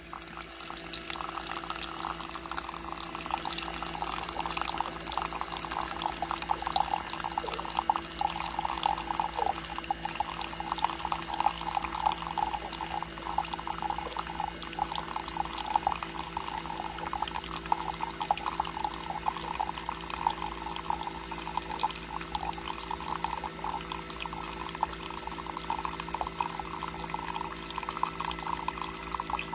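A thin stream of brewed coffee pouring steadily from a coffee machine's spout into a mug, trickling and splashing as the mug fills, with a steady low hum underneath.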